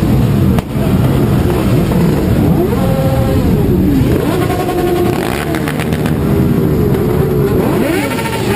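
Several sport motorcycle engines revving at once, their pitches climbing and falling over one another in overlapping blips of the throttle.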